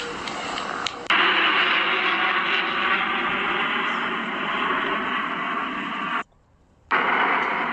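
Jet engine noise from a formation of military jets flying over: a loud, steady rushing noise that starts abruptly about a second in and drops out for about half a second after six seconds.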